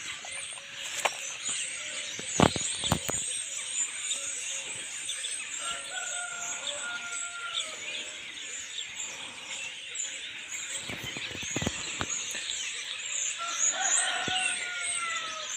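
A flock of starlings chattering and whistling in the trees, a dense steady twittering. Now and then a long, slightly falling call and a few sharp knocks stand out.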